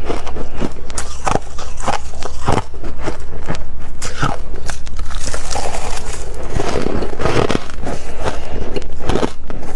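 Freezer frost being bitten and chewed close to the microphone: a dense run of sharp, crackling crunches.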